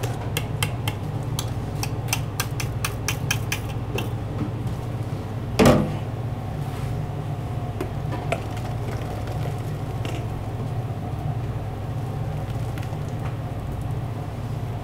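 Thick sauce being stirred in a stainless steel bowl, with a quick run of clicks against the bowl for the first few seconds and a single loud knock about six seconds in. A steady low hum runs underneath.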